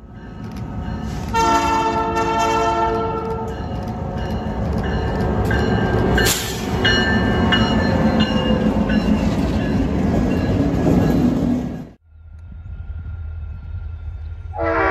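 Several different locomotive horns sound in turn over the rumble and rail noise of passing trains, with a sharp click about six seconds in. After a sudden cut there is a low rumble, and near the end a locomotive's chime horn starts up: HESR 3038's Leslie RS-5T.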